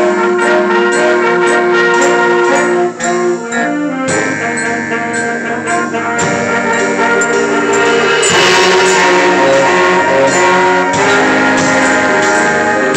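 High school band playing, with horns including baritone saxophone over a steady beat. The sound gets fuller and brighter about eight seconds in.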